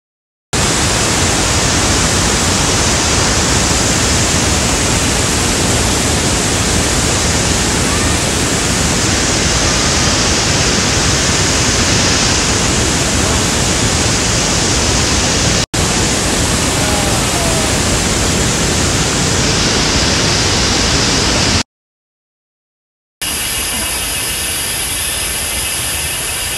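Shifen Waterfall's broad falls pouring, a loud, even rush of water without a break in its texture. It cuts off about 22 s in, and after a short silence a quieter, steady hiss follows.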